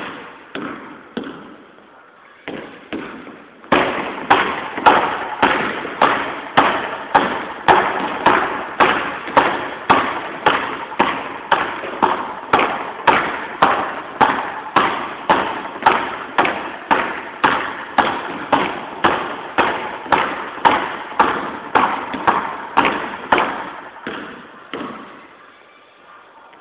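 Two basketballs pounded hard on a hardwood gym floor, about two bounces a second, each bounce echoing in the gym. A few lighter bounces come first, and the hard pounding starts about four seconds in and stops near the end.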